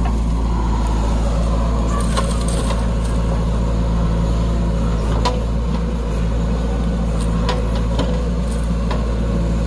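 Heavy diesel engine running steadily at a constant speed, with a few scattered light knocks over it.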